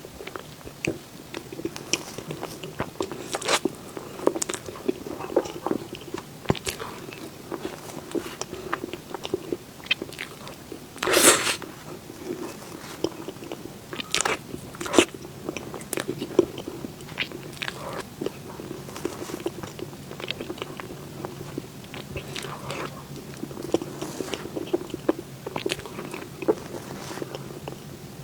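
Close-miked eating of desserts: repeated bites and chewing, with many short clicks and a louder bite about eleven seconds in.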